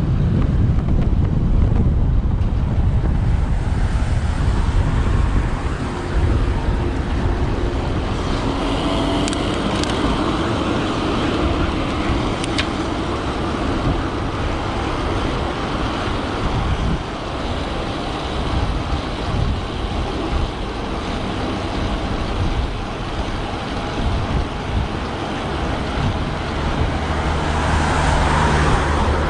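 Wind rumbling on the microphone of a moving road bike, over the steady noise of road traffic going past. Near the end a motor vehicle's engine comes close and louder.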